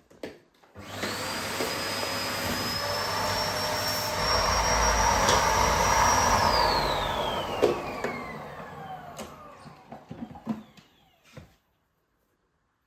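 Bagless canister vacuum cleaner switched on about a second in, running with a high motor whine, then switched off, its motor winding down with a falling whine over a few seconds. A few sharp clicks come as it runs down.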